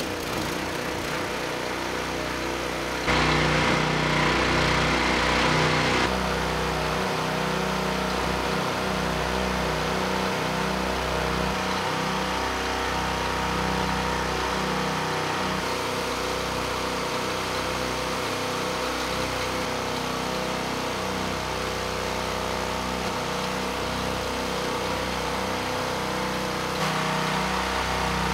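Two small single-cylinder gasoline engines running steadily side by side with the oil drained from their crankcases. They grow louder for a few seconds about three seconds in.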